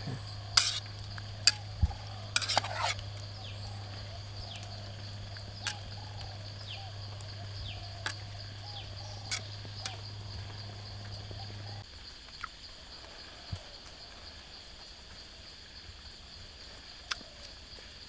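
Pot of pork broth boiling, bubbling steadily, with a few sharp clinks in the first three seconds. The bubbling stops about twelve seconds in, leaving steady insect shrilling.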